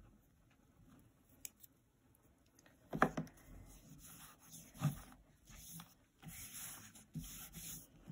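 Fingers rubbing and smoothing the surface of a dome of plasticine clay: soft scratching and brushing sounds that come mostly in the second half, with two short louder bumps about three and five seconds in.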